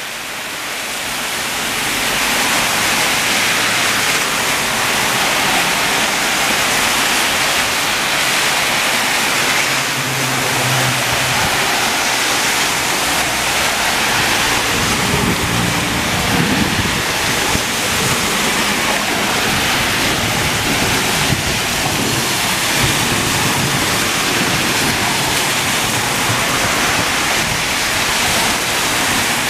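Torrential thunderstorm rain pouring down in a loud, steady downpour on the street and pavement. Cars pass through the water on the wet road, with a low hum from passing vehicles at a couple of points.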